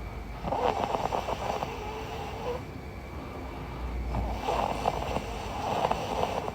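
A woman snoring in her sleep: two fluttering snores, each about two seconds long, about four seconds apart.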